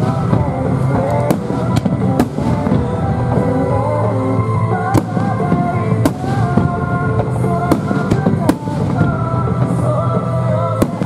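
Aerial firework shells bursting, about eight sharp bangs at uneven gaps of a second or more, over loud continuous music.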